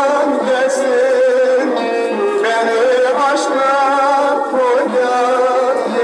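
Background music in a Middle Eastern folk style: a melody line that slides and wavers in pitch over a steady accompaniment.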